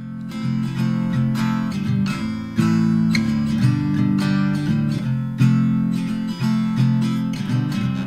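Background music: acoustic guitar strumming chords in a steady rhythm, getting louder about two and a half seconds in.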